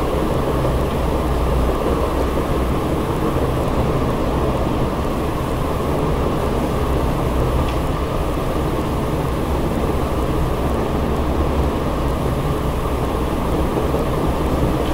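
Steady loud rumble with a low hum underneath.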